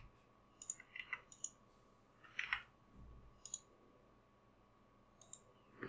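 A handful of faint, scattered computer mouse clicks, some in quick pairs, with quiet gaps between them.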